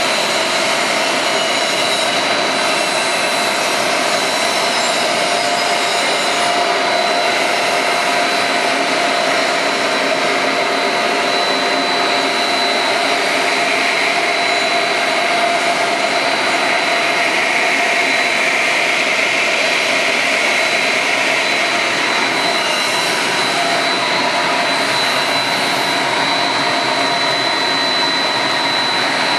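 Twin-die blown film extrusion line running: a steady, loud rush of motors and cooling-air blowers with a constant high whine over it.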